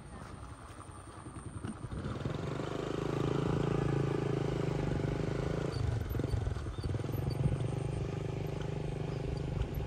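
A motorbike engine running steadily close by, growing louder about two seconds in; its note changes briefly just past halfway.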